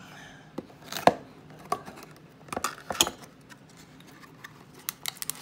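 Hands opening a cardboard trading-card box, pulling at its inner flaps: a scatter of sharp cardboard clicks and taps. The loudest is about a second in, with more clustered near the end.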